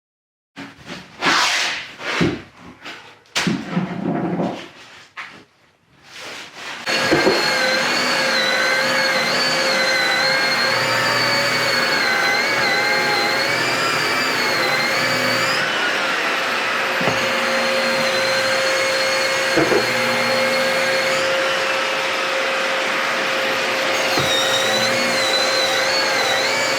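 A few seconds of scattered knocks and handling noise, then a Festool drywall sander and its dust-extraction vacuum start and run steadily while sanding mudded drywall, with a steady hum and a whine that wavers slightly in pitch as the sander works the wall.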